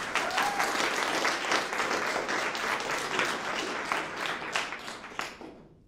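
Audience clapping, a round of applause that fades away over the last second or so.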